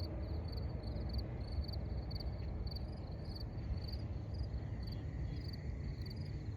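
Insects chirping steadily, a short high chirp repeating about three times a second, over a low outdoor rumble.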